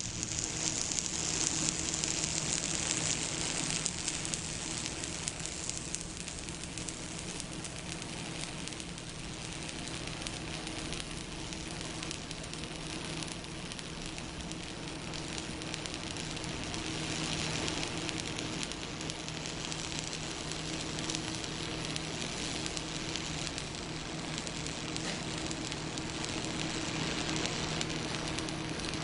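Stick (arc) welding with a Stud Pull electrode, building up weld inside a nut to join it to a broken stud: the arc's steady crackling sizzle, with a steady low hum underneath.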